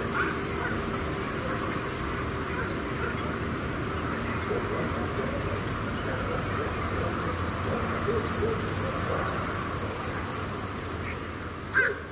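A steady, high-pitched chorus of night-singing insects such as crickets, with scattered faint low calls in the middle. Near the end a short, louder call or knock sounds and the insect chorus stops abruptly.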